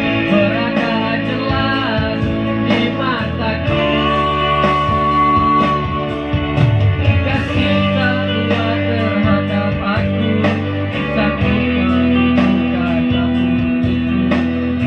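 Music from a Korg Pa50SD arranger keyboard played loud through large loudspeaker cabinets, with plucked guitar-like tones over a steady bass and beat. It is a check of the sound system.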